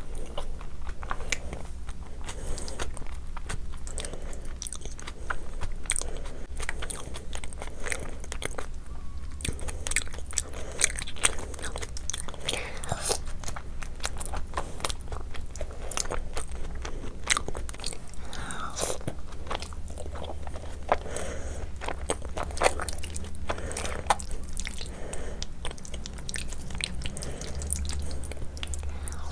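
Close-miked chewing of mouthfuls of khichdi and meat eaten by hand: a continuous run of wet lip-smacks and mouth clicks, over a steady low hum.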